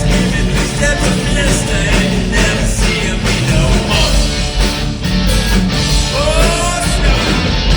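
Rock band playing loud southern rock, with electric guitar, bass and drums.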